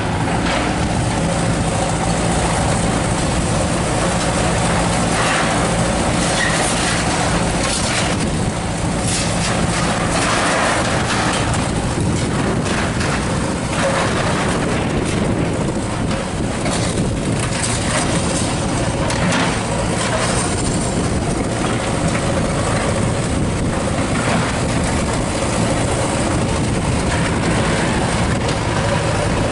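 Continuous loud engine rumble and street noise, with scattered knocks and clatters.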